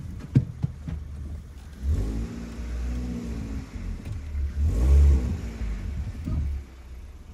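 Car engine idling with a few sharp clicks near the start, then revved up twice and let fall back to idle. It is a Hyundai Solaris engine breathing through a Kia Ceed GDI variable-geometry intake manifold.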